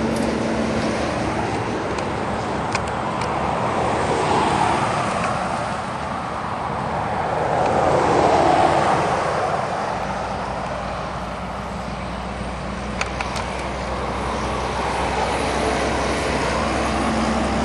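Highway traffic: semi trucks and cars going by, their engine and tyre noise swelling and fading. It is loudest about eight seconds in, as one vehicle passes close, and a truck engine hums steadily at the start and again near the end.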